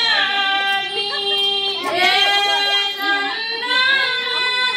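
A song with a high voice singing a gliding melody over a steady held note from the accompaniment.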